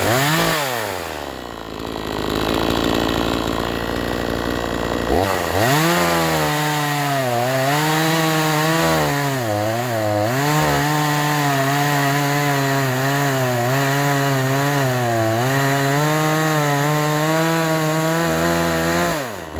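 Two-stroke chainsaw: its engine drops back to idle at the start, then revs up about five seconds in and cuts through wood for some fourteen seconds, the pitch sagging and recovering repeatedly under load, before dropping off again near the end.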